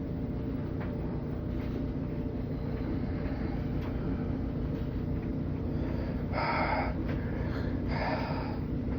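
Washing machine running with a steady hum. Two short hissing surges come a little over six seconds in and again about eight seconds in.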